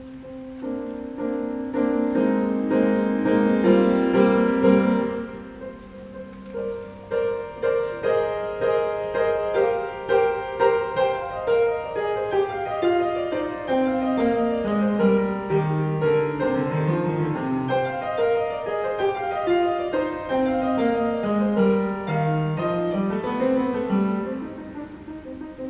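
Upright piano being played: a flowing passage of many quick notes over a bass line that steps steadily downward through the middle and climbs again near the end.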